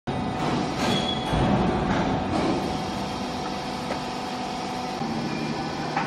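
Vertical cardboard baler's hydraulic power unit running with a steady mechanical hum, with a few knocks and clatters in the first couple of seconds.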